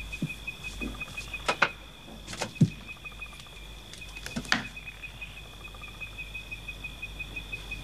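A few sharp knocks and rustles as clothes are handled and folded on a wooden chest, the loudest knocks about one and a half, two and a half and four and a half seconds in. Behind them runs a steady, high, pulsing trill.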